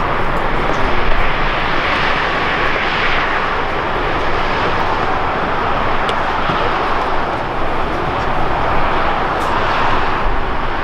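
Airbus A320 jet engines on final approach, a steady rushing noise that swells and eases only slightly.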